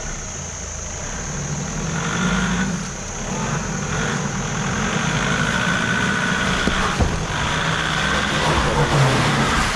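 Four-wheel drive's engine revving under load as it is driven up over an obstacle. The revs rise about two seconds in, ease off briefly, then build again and stay up until near the end.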